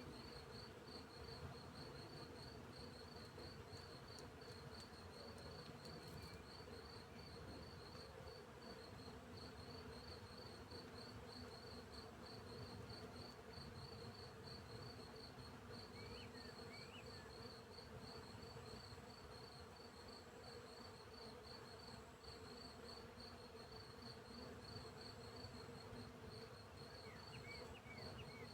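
Field crickets chirping in a steady, even rhythm of about five chirps a second, over the low hum of bees buzzing. A few faint, short high chirps come through around the middle and again near the end.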